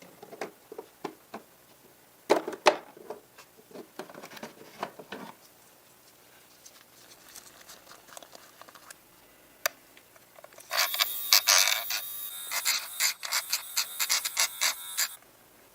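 Hand work on a workpiece: scattered light clicks and knocks, then about four seconds of rapid rubbing or scraping strokes near the end.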